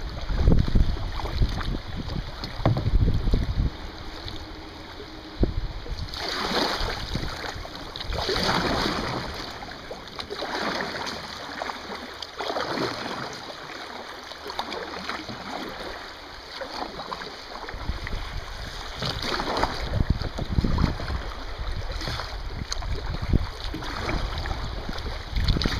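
Kayak paddle strokes splashing in a fast, shallow river, about one every two seconds over the sound of running water. Low wind rumble on the microphone in the first few seconds.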